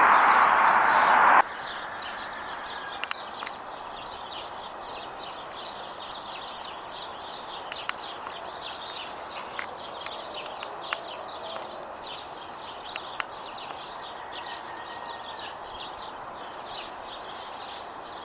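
Songbirds twittering continuously over a steady background rush. A loud burst of noise fills the first second and a half and then cuts off abruptly.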